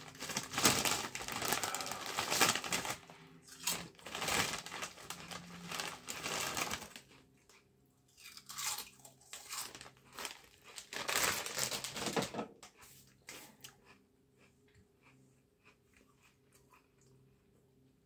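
Crinkling and crunching of a chip bag being handled, in dense bursts for about the first thirteen seconds, then only faint rustles.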